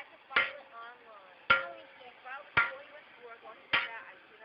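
Hammer blows on a hot steel lawnmower blade on an anvil: four strikes about a second apart, each ringing briefly.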